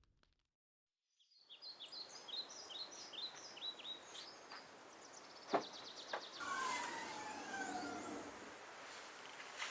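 Wild birds calling: starting about a second and a half in, a quick series of short, downward-sweeping chirps, then longer calls that glide up and down in pitch. A single sharp click comes about halfway through, over a faint outdoor background.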